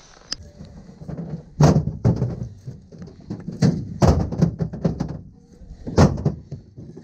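Irregular knocks and thumps, about five of them, the loudest about a second and a half in and about six seconds in.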